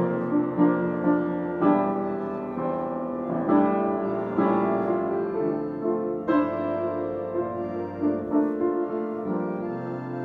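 Slow keyboard music: a melody over held chords, a new note about every half second.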